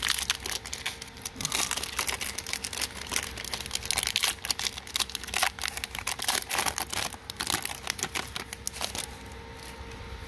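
Foil wrapper of a Magic: The Gathering collector booster pack crinkling and tearing as it is peeled open by hand. The dense crackle stops about nine seconds in.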